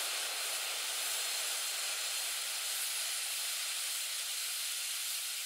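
Steady rushing hiss of a quadcopter in flight, heard through its onboard camera: airflow and propeller noise with no distinct motor tone.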